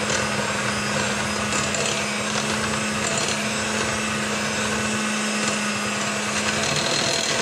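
Electric hand mixer running steadily with a constant motor hum, its beaters whipping butter and evaporated milk into buttercream in a glass bowl.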